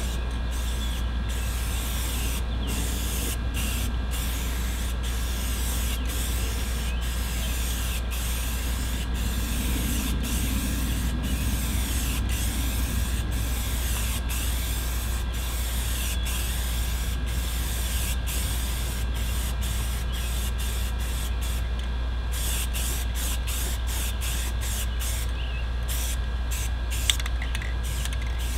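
Aerosol rattle can of semi-gloss black paint spraying with a steady hiss, pass after pass, with brief breaks between strokes; near the end the breaks come quicker, in short bursts.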